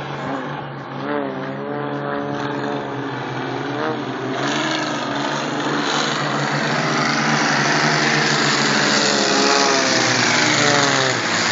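Aerobatic propeller planes flying a display. The engine hum wavers up and down in pitch, then swells into a louder rushing noise that builds through the second half and drops away near the end, as a plane passes overhead.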